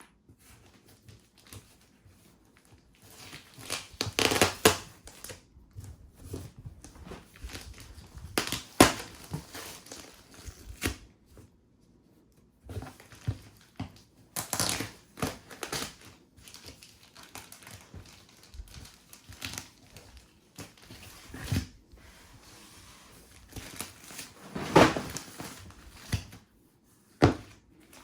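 Packaging of a plastic model kit being opened and handled: the cardboard box and plastic bags rustle and crinkle in irregular bursts, with a few sharp knocks.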